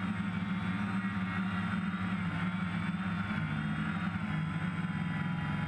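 DJI F550 hexacopter's six electric motors and propellers humming steadily in flight, heard from on board the drone, the pitch wavering slightly as the throttle shifts.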